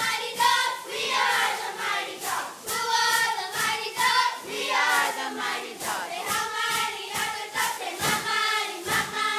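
A girls' cheer squad chanting a cheer in unison, the call rising and falling in rhythmic phrases, punctuated by sharp rhythmic hits of claps and stomps.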